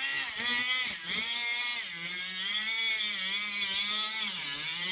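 Cordless angle grinder with an abrasive cutoff wheel cutting through tire rubber: a steady motor whine with a hiss of cutting, its pitch sagging briefly under load about a second in, around two seconds in and near the end.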